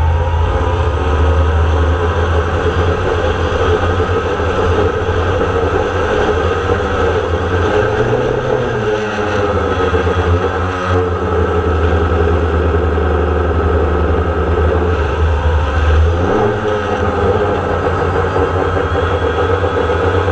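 DJI Phantom quadcopter's motors and propellers buzzing steadily, picked up by the camera mounted on the drone. A deep low rumble runs under the buzz and drops away about three-quarters of the way through.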